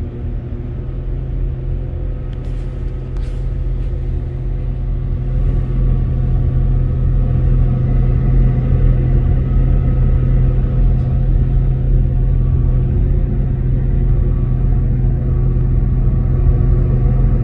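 Northern Class 195 diesel multiple unit heard from inside the carriage: its underfloor MTU diesel engine and the running rumble of the train, a steady low drone with a few engine tones, growing louder from about six seconds in. A few faint clicks sound near the start.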